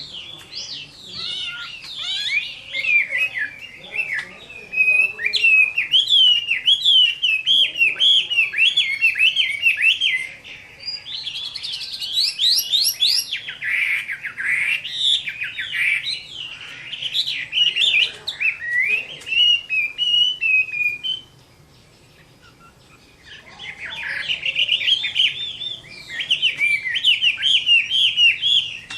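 Chinese hwamei (họa mi) in full vigorous song: long strings of fast, varied whistled notes sliding up and down in pitch. It breaks off for about two seconds a little past the two-thirds mark, then picks up again.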